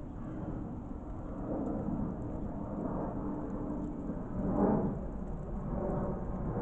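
Wind buffeting the microphone: a steady low rumble, with one stronger gust about four and a half seconds in.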